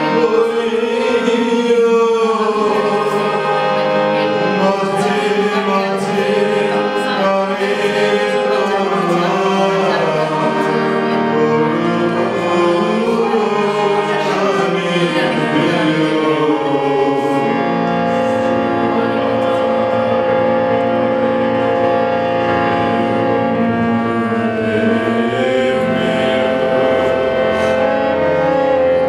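Voices singing a song to a hand-pumped harmonium. In the second half the sound turns mostly to steady held notes.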